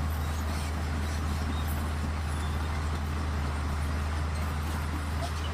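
Steady low hum under a faint, even background hiss.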